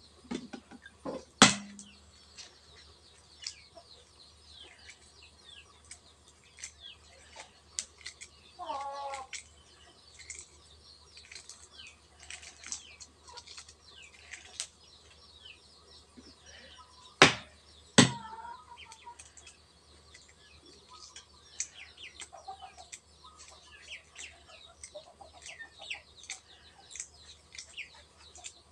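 Small birds chirping over and over, high and thin, with a short wavering call about nine seconds in. Three sharp knocks stand out: one about a second and a half in and two close together a little past halfway, amid faint crackling as boiled duck eggs are peeled.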